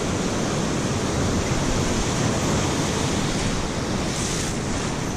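Ocean surf washing on a beach, with wind buffeting the microphone: a steady rushing noise, with a brief brighter hiss about four seconds in.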